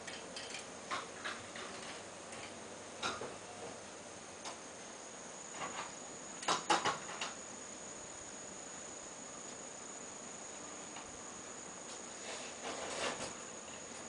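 A steady high-pitched insect trill over a faint background hiss, with scattered short sharp sounds; the loudest is a brief cluster about six and a half seconds in, and another comes near the end.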